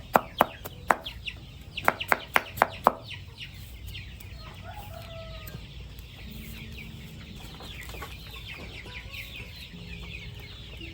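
Sharp knocks of chopping, about three a second, for the first three seconds, then a flock of chickens clucking, with many short high falling peeps.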